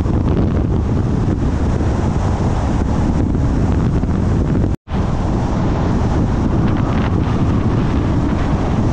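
Loud, steady wind rumble buffeting the microphone. It cuts out for an instant about five seconds in, then carries on unchanged.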